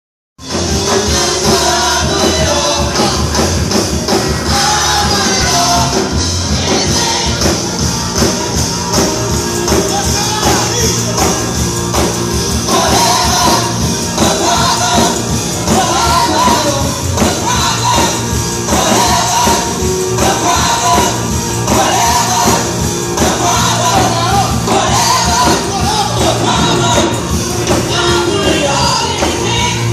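Gospel choir and lead singers singing with a live band, guitar and keyboard among the instruments, amplified through the church's sound system. The music cuts in abruptly just after the start.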